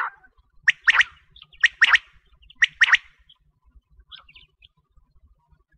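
A quail (batair) calling: three sharp phrases of two to three quick notes each, about a second apart, then a few faint notes about four seconds in.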